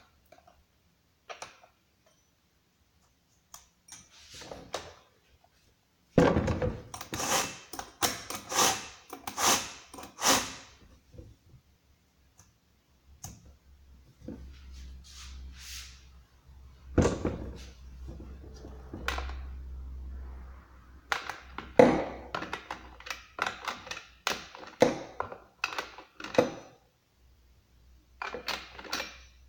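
Handling noise of a new chainsaw and its packaging: irregular clusters of clicks, knocks and thuds with quiet gaps between them. The saw is not running.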